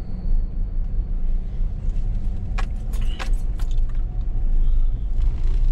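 Vehicle driving with a steady low rumble, with a few short light clicks and jingles about two and a half to three and a half seconds in.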